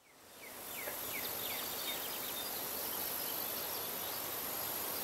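Rural outdoor ambience fading in over the first second: a steady high insect trill with many short, falling bird chirps.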